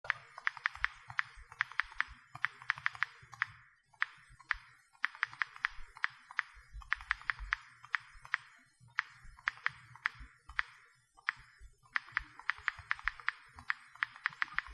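Typing: rapid key clicks in runs of several a second, broken by short pauses, each click slightly ringing.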